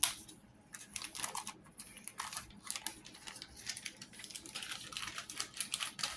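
Plastic packaging being handled: an irregular run of crinkling and rustling with small clicks.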